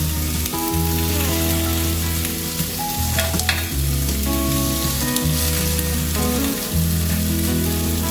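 Kingfish fillet sizzling in butter in a hot frying pan, a steady hiss, with a brief clatter about three seconds in.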